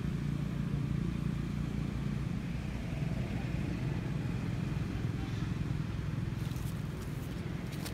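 An engine running steadily, a low even hum, with a few sharp clicks near the end.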